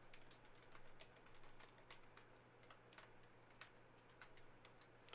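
Faint, irregular light clicks and taps, several a second, over a steady low hum.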